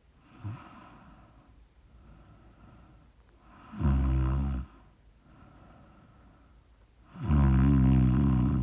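A woman snoring in her sleep: two loud snores about three and a half seconds apart, the second one longer, with soft breathing between them.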